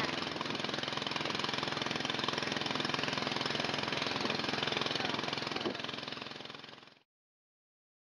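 Small boat motor running steadily, with a faint bird call late on. The sound fades and cuts to silence about seven seconds in.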